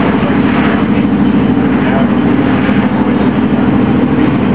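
Tour boat's engine running steadily: a loud, constant low drone with an even hiss above it.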